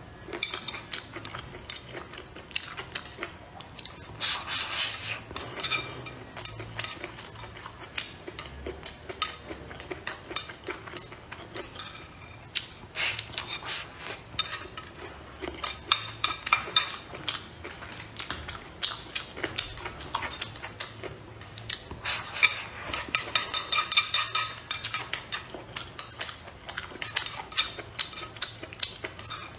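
Metal chopsticks clicking, knocking and scraping against a bowl as rice is scooped up and eaten, with chewing between. The clatter comes in busier spells a few times.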